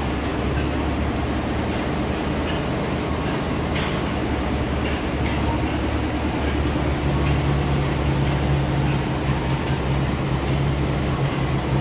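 Steam engine running steadily: a continuous mechanical rumble of its moving crank and valve gear with faint, regular light clicks. A steady low hum grows stronger about seven seconds in.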